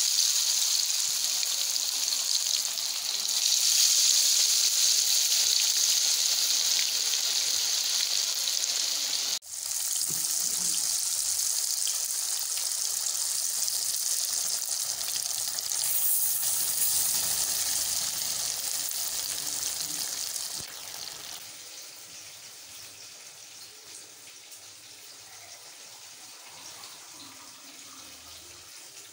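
Fish pieces deep-frying in hot oil in a pot: a steady sizzling hiss that breaks off for an instant about nine seconds in, then drops sharply to a faint hiss about twenty-one seconds in.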